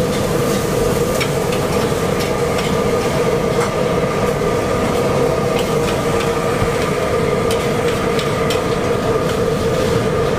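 Stir-frying in a steel wok: a steady burner noise with a hum, over which the metal spatula scrapes and clinks against the wok many times as noodles and egg are pushed and turned.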